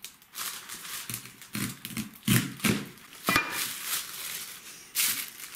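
A large kitchen knife cutting into a whole char on a plastic cutting board: a run of short scraping strokes and knocks, loudest around the middle.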